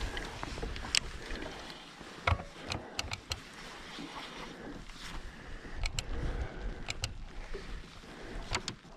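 Scattered sharp clicks and knocks of fishing gear being handled in a small boat, over a low hiss of wind and rain.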